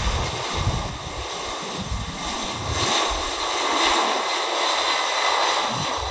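Jet engines of a Boeing 767 freighter rolling down the runway: a broad jet roar with a faint high whine, swelling to its loudest about four seconds in. A gusty low rumble runs under the first half.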